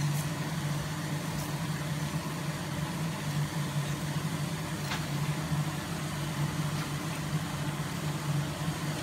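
A steady low hum with a faint even hiss from black mustard seeds just added to hot oil in a cast-iron pan, and a few faint ticks, about three over the stretch.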